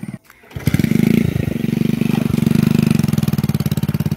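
Small single-cylinder engine of a United motorcycle running at low speed, heavily loaded with two riders and fertiliser sacks, labouring along a muddy track. After a brief gap near the start, the engine note is loud and steady, with fast, even firing pulses.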